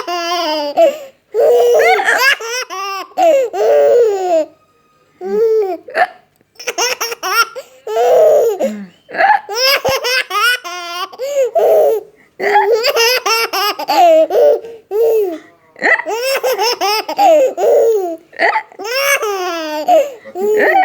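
A 5-month-old baby laughing in repeated bursts with short pauses between them, the laughter broken by hiccups.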